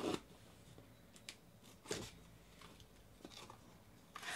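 A knife blade slicing the packing tape on a cardboard shipping box: a short scraping rip at the start and another about two seconds in, with small clicks and taps of cardboard in between. Cardboard rustles near the end as the flaps are pulled open.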